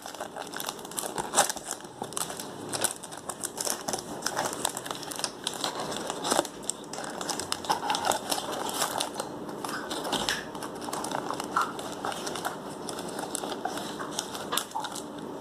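Clear plastic wrapper crinkling and crackling in quick, irregular bursts as it is peeled off a small cardboard perfume box, then fewer, sparser rustles as the box is handled and the bottle is drawn out of it.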